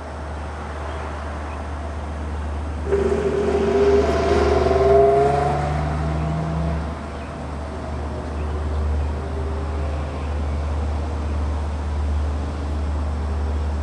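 An engine revving up about three seconds in, its pitch rising for a couple of seconds before it eases off, over a steady low rumble.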